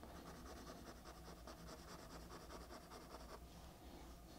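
Faint scratching of a pencil on drawing paper in quick, short shading strokes, several a second, stopping a little over three seconds in.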